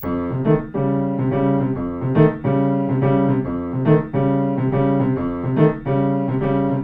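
Intro music: repeated sustained keyboard chords, with a stronger accent about every second and a half to two seconds.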